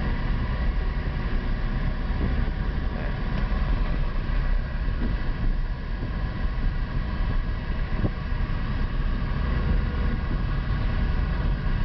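Inside the cabin of a Citroën SM under way at low speed: its 3-litre Maserati V6 runs steadily under the road and tyre noise.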